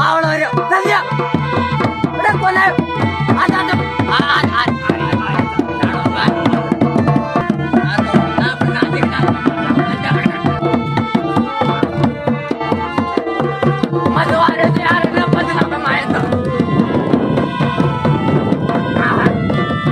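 Indian folk-style music: a fast, steady hand-drum beat with a melody played over it.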